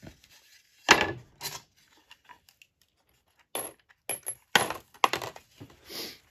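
Loose metal bolts clinking as they drop into a plastic tray, and oak deck boards knocking as they are handled. A sharp clink about a second in is the loudest, followed by a quiet pause and then a run of clinks and knocks in the last few seconds.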